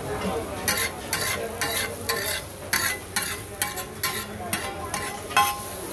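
Metal spatula scraping and tapping against a hot iron tawa in repeated strokes, two or three a second, some with a short metallic ring, as it turns and chops onion-tomato masala that sizzles steadily in the oil.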